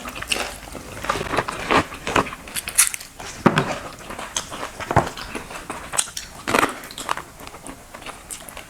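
A person eating close to the microphone: irregular crunches and wet mouth clicks of chewing and biting.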